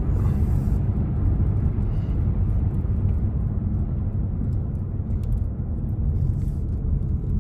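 Car road noise heard from inside the cabin while driving: a steady low rumble of engine and tyres.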